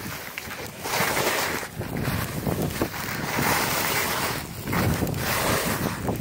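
Skis hissing and scraping over packed, groomed snow during a downhill run, swelling and fading in waves about every second, with wind rushing over the microphone.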